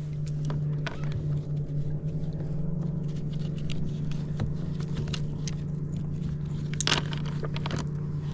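Small metallic clinks and clicks from the lure retriever and fishing tackle being handled, over a steady low hum. One louder clack comes about seven seconds in.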